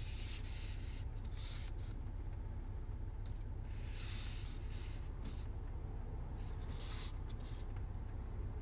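Steady low rumble with intermittent rustling and rubbing noises, several times.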